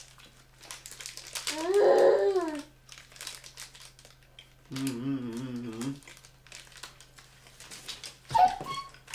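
Snack-bar wrapper crinkling in the hands, with a toddler's high wordless call that rises and falls about two seconds in, a lower wavering hum of a man's voice about five seconds in, and a single thump near the end.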